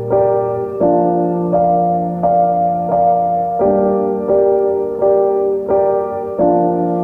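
Background music: a piano playing slow, evenly paced notes and chords, a new one struck about every three quarters of a second.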